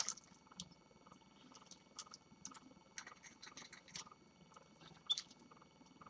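Small caged finches giving short, scattered chirps and calls, mixed with small clicks and taps, loudest with a sharp chirp about five seconds in.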